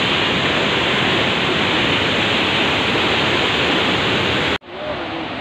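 Steady rushing roar of a nearby waterfall, which drops abruptly to a much quieter rush near the end.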